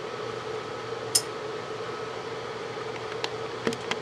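Steady room hum and hiss with a faint, even tone, broken by a few light clicks about a second in and again near the end.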